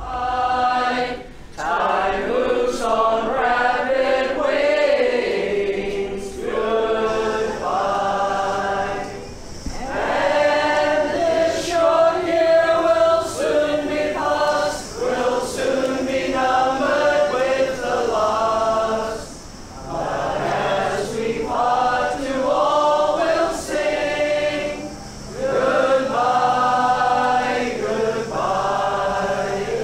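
A group of voices singing together unaccompanied, in phrases a few seconds long with short breaks between them.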